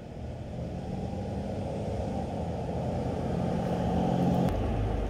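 Engine rumble with a steady low hum, growing louder over about four seconds, then easing off near the end.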